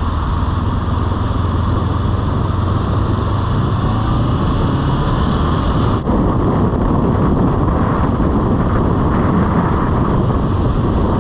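Motorcycle riding at speed, its engine and wind noise loud on the rider's microphone. There is a brief break about six seconds in, after which the engine pitch rises and falls as the rider accelerates.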